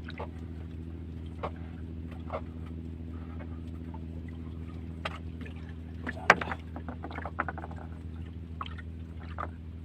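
An engine running steadily with a low, even hum, with scattered knocks and clicks over it; the sharpest knock comes about six seconds in.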